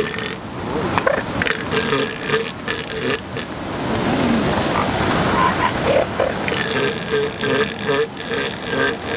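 Northern elephant seals calling during mating, a rapid series of pulsed calls at about four a second, in two bouts, as a bull mounts a female. A steady wash of surf runs underneath.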